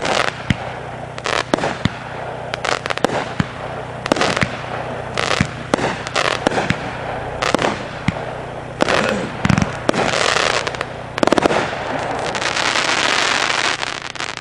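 A Magnus Fireworks 'Summer Cocktail' 500-gram consumer firework cake firing: a rapid, irregular series of sharp launch thumps and bursting breaks. Near the end come about two seconds of steady, dense crackling hiss.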